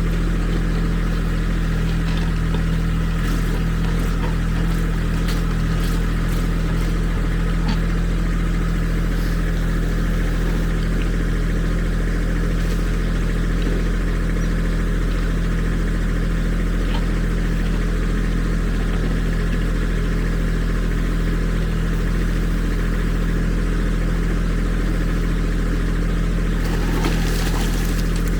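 Kubota SSV75 compact track loader's diesel engine running at a steady speed, with scattered faint clicks in the first half and a brief rush of noise near the end.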